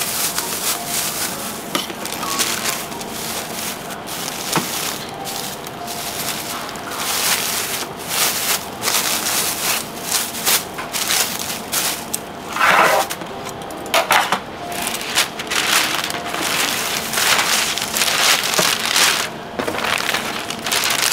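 Thin plastic bag and paper wrapping crinkling and rustling as they are handled, coming and going in irregular crackles.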